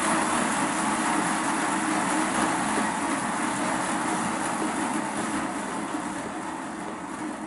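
Model locomotive's electric motor and gear drive running and winding down as the DCC throttle is stepped down. It makes a steady whirring hiss that slowly fades.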